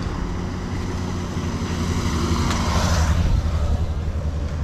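A motor vehicle's engine running close by on the road, growing louder for a moment about three seconds in as it passes.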